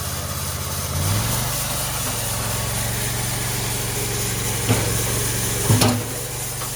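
Engine idling steadily, its note stepping up slightly about a second in. Two short sharp sounds come near the end.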